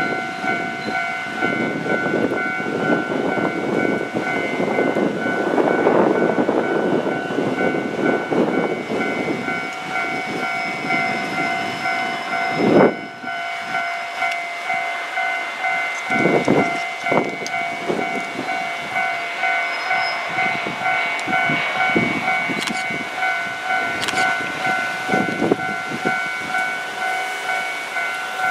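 Japanese level-crossing warning bell ringing steadily with rapid repeating tones, while a former Nankai electric train rumbles in and slows into the station. There is one sharp knock about halfway and a few clunks from the wheels later on.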